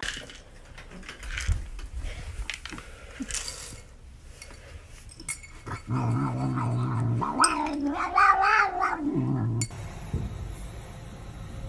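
A cat gives one long, low, growly yowl of about four seconds, rising and falling in pitch, while it eats from its bowl.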